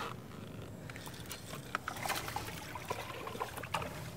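Light splashing and trickling water close to the boat as a hooked bass is fought on the line, with scattered small clicks over a low steady hum.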